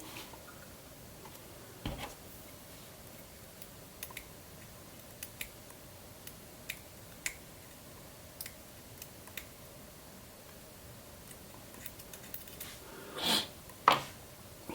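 Small clicks and taps of an ASSA d12 lock cylinder's parts being handled as the lock is taken apart. The clicks are sparse, with a knock about two seconds in and louder clattering near the end.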